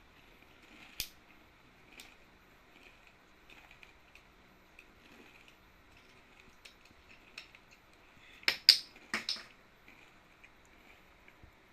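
Watermelon being bitten and eaten: scattered faint small clicks, then a quick run of four or five loud, crisp crunching bites over about a second after roughly eight seconds.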